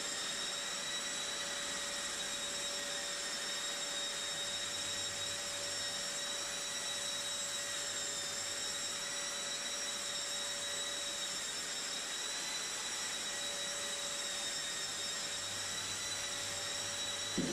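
Festool Planex long-reach drywall sander sanding a plasterboard ceiling, with its hose-connected dust-extractor vacuum running: a steady, even whine.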